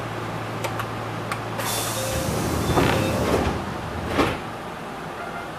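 Enshu Railway electric train's pneumatic passenger doors closing: a hiss of air and a rumble, ending in a sharp thump about four seconds in, against the steady hum of the standing train.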